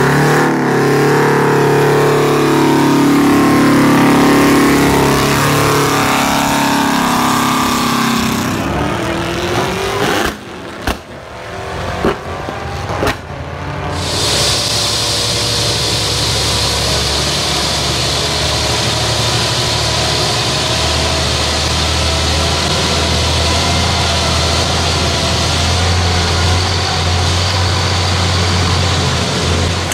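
An 8V71 Detroit Diesel two-stroke engine revving up and down, its pitch rising and falling, for about the first nine seconds. After a few seconds of sharp clicks, a big diesel engine runs steadily with a deep low hum.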